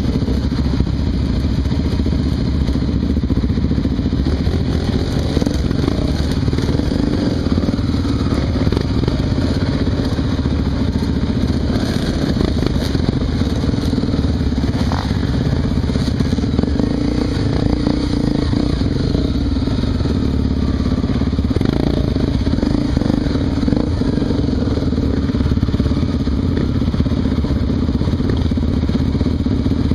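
Honda XR 250 Tornado's single-cylinder four-stroke engine running continuously on a dirt trail, its pitch rising and falling with the throttle, with a few short knocks along the way.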